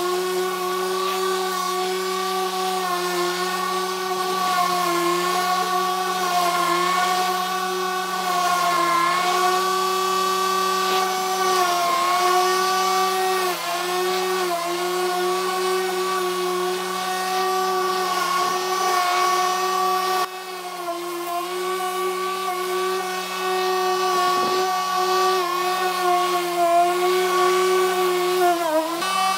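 Corded electric lawn mower running steadily with a whining motor hum, its pitch sagging briefly now and then as it cuts through the grass.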